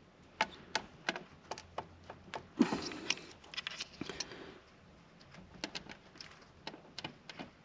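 Small clicks, taps and rustles of hands working at a steering-wheel airbag's plastic connector clip, trying to unplug it, with a slightly louder scrape about two and a half seconds in.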